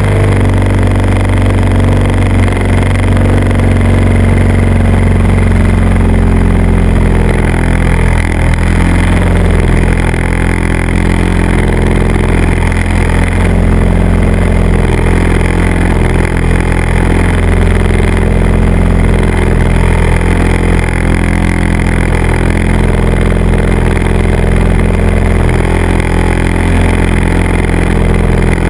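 A small aircraft's engine and propeller running with a steady, low-pitched drone that holds an even note and does not rev up or down, over a wash of rushing air.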